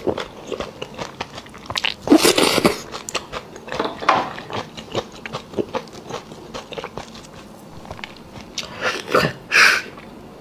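Close-miked wet chewing and lip-smacking, with loud sucking slurps about two seconds in and twice near the end: beef bone marrow being sucked out of the bone and eaten.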